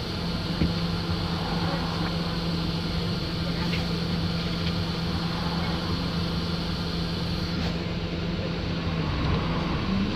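Wright StreetLite single-decker bus heard from inside, running with a steady low engine hum. Near the end the note wavers and starts to rise.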